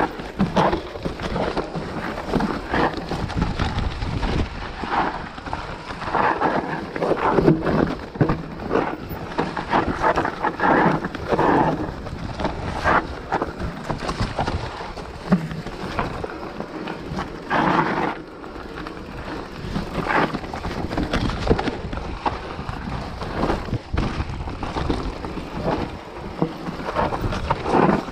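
Mountain bike riding down a rough dirt and rocky singletrack: tyres crunching over dirt, dry leaves and stones, with the bike rattling and knocking over bumps at irregular moments. Wind rumbles on the microphone underneath.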